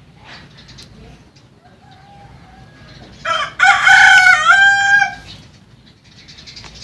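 A rooster crowing once, about three seconds in: a short first note, then a long held call of about two seconds that steps down in pitch near its end.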